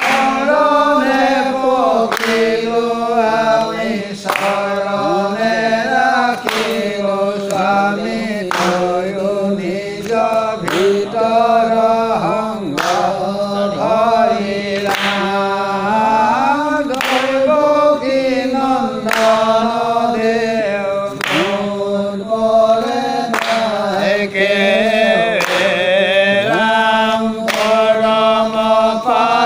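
Assamese devotional naam chanting: voices singing a chanted melody together, with a sharp percussive strike about every two seconds keeping the beat.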